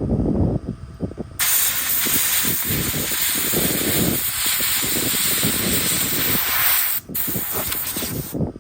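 A high-pressure cleaning gun blasting a steady, loud hiss. It is triggered on abruptly about a second and a half in, cut off for a moment near 7 s, and released again just before the end.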